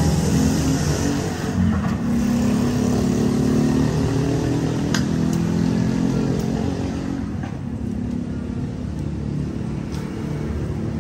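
Roadside traffic: a motor vehicle engine running close by, a steady low hum that eases slightly about seven seconds in.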